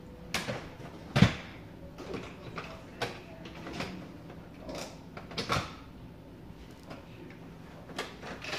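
Irregular knocks, clicks and light clatter of plastic dolls and Barbie dollhouse pieces being handled, the loudest knock about a second in.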